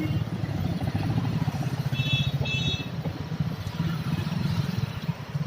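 A motor running steadily with a low drone. Two short high-pitched tones sound close together about two seconds in.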